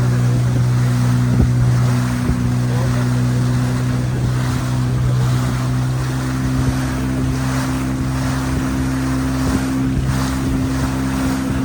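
Launch's motor running at a steady drone while underway, with water and wind noise over it.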